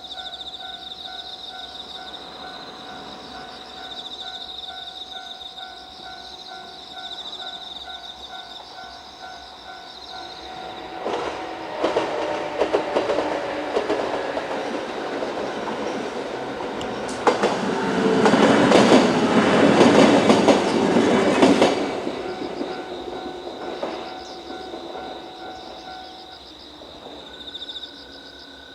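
A Japanese level-crossing alarm rings its repeating bell while a diesel railcar comes up and crosses. The railcar's wheels click over the rail joints, loudest about two-thirds of the way in, and the alarm stops near the end. A high chirping carries on throughout.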